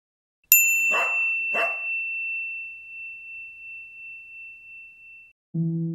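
A high, clear ringing tone starts sharply about half a second in and fades slowly over some five seconds. Two short rough bursts sound under it about a second in. Just before the end a low sustained musical note begins.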